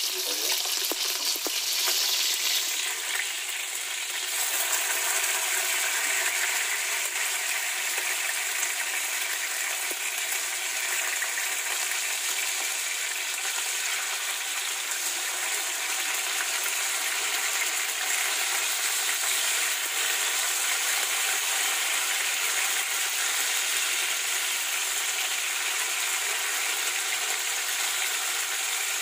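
Tuna steaks sizzling steadily in hot oil in a nonstick frying pan, with light scrapes and taps of a plastic slotted spatula as the pieces are turned.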